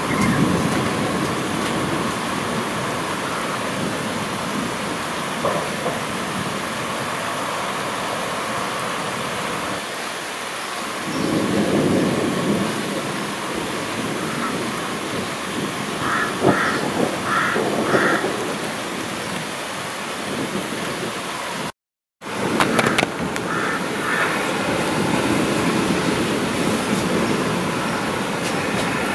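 Steady rain falling in a thunderstorm, with a low rumble swelling up twice, about a third of the way in and again near the end, and a few short high calls a little past halfway. The sound drops out for a moment about three-quarters of the way through.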